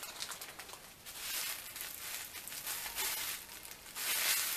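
Rustling as a long synthetic wig is handled and lifted up, in small irregular surges that grow louder near the end.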